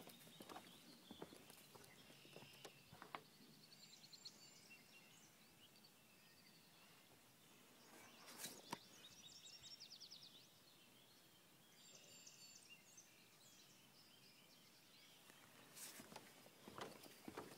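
Faint songbird trills, a few rapid runs of repeated high notes, with the knock of footsteps on the wooden bridge planks near the start and again near the end.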